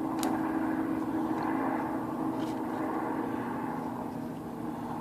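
Steady droning hum of room machinery, with a few faint light clicks as the ribbon end is fastened to the spool.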